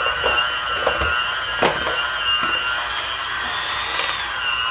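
Black+Decker electric hand mixer running steadily, its beaters whirring through boiled potatoes in a steel pot. The motor's pitch wavers a little as the load changes, and there is a single sharp knock about a second and a half in.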